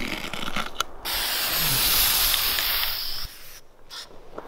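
A hiss of spray that starts sharply about a second in, holds steady for a little over two seconds, then cuts off.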